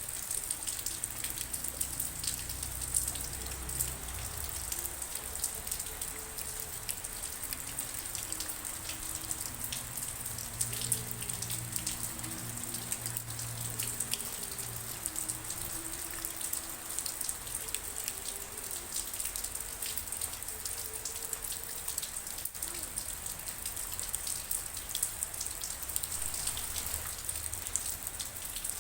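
Steady rain falling, with many separate drops ticking on surfaces.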